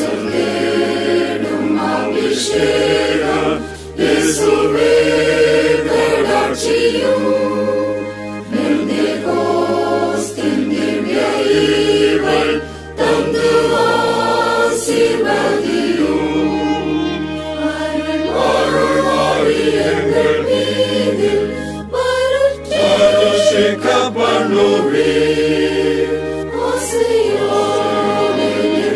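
Choir singing a Tamil hymn asking Jesus for the anointing of the Holy Spirit, over accompaniment with held bass notes that change every second or two. The singing breaks briefly between phrases.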